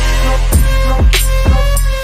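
Background music with a steady beat: a deep held bass, sustained melodic tones, and a drum hit about every half second.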